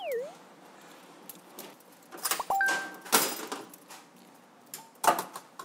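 Kitchen clatter: scattered metallic clinks and knocks of utensils and steel trays at a work counter, with a few louder clatters. A brief bright electronic ding comes partway through, and a quick cartoon-like up-and-down whistle effect sounds right at the start.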